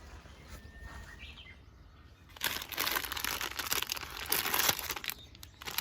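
Crinkling and rustling of packaging being torn open, starting about two seconds in and lasting a few seconds.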